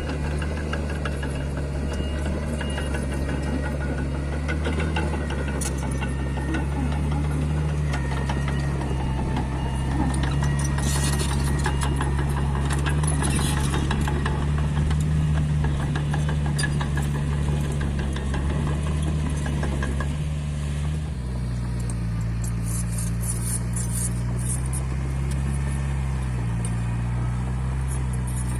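Mini bulldozer's diesel engine running steadily as it levels fill soil, its note changing about two-thirds of the way through, with high squeaks now and then.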